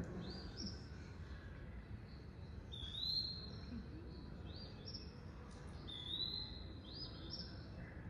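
Recorded flycatcher song played over speakers in a room: short two-note phrases repeated every second or two.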